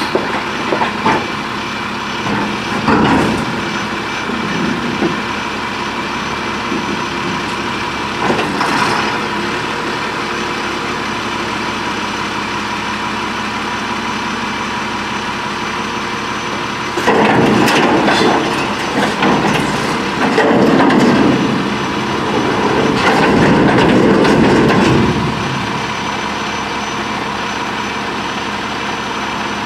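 A 1999 Crane Carrier garbage truck's engine runs steadily while its Impac CSL automated side-loader arm lifts a cart up to the hopper, dumps it and lowers it. There are short knocks a few seconds in and again near nine seconds, and a louder stretch of mechanical clatter and strain from about seventeen to twenty-five seconds in.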